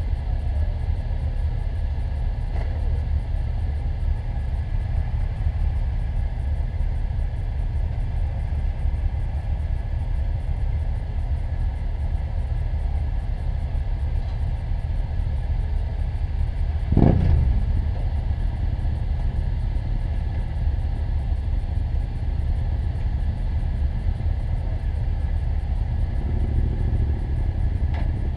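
Steady low rumble of idling motorcycle engines. About seventeen seconds in there is one loud sudden thump with a quickly falling tone.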